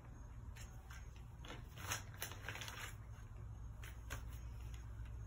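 A small cardboard crochet-hook box and tissue paper being handled and opened: a scatter of short rustles and scrapes, busiest around the middle, over a steady low hum.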